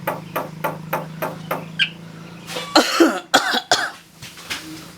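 Pet jalak starling mimicking a human cough: about four hoarse coughs in quick succession a little past the middle. These follow a run of quick, evenly spaced clicks in the first second and a half.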